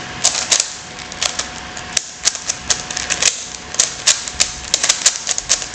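YJ Yuhu v2 magnetic Megaminx being turned by hand: its faces click and clack in quick, irregular runs of several turns a second. A steady background hum runs underneath.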